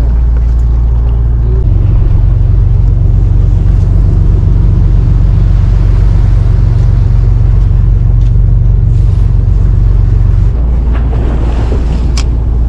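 Fishing boat's engine droning steadily, with water washing along the hull and wind on the microphone; the drone shifts about two seconds in and again near the end. A single sharp click comes near the end.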